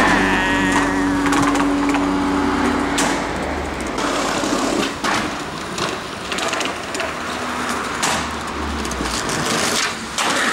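Skateboard on a wooden ledge and pavement: wheels rolling and trucks grinding along the wood, with several sharp board clacks from pops and landings.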